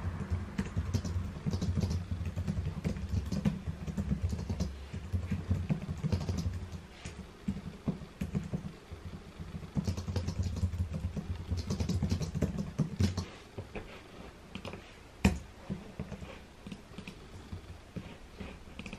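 Typing on a computer keyboard: runs of rapid key clicks that stop about two thirds of the way through, followed by a few scattered clicks and one sharper click.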